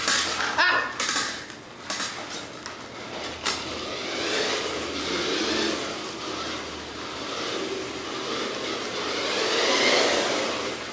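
Small battery-powered toy RC car driving on a floor: the motor and wheels run in a noisy rush that swells and fades as it speeds up and slows, with several sharp knocks in the first few seconds.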